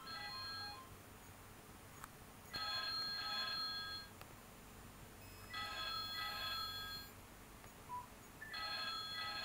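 Electronic telephone ringer ringing: three rings of a warbling electronic tone, each about a second and a half long and about three seconds apart, after a short run of electronic beeps at the start.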